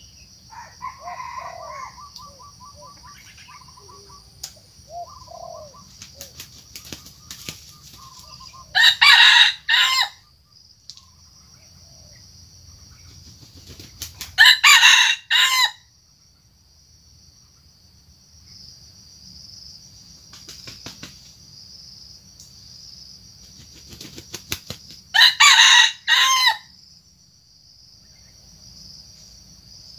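Red junglefowl rooster crowing three times, about five to ten seconds apart, each crow short and loud. Softer clucking comes in the first few seconds, and a steady high drone of insects runs between the crows.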